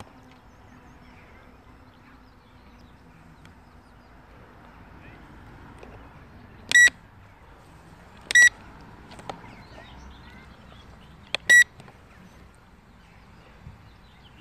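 Three short, loud electronic beeps, the second about a second and a half after the first and the third about three seconds after that, over a faint outdoor background.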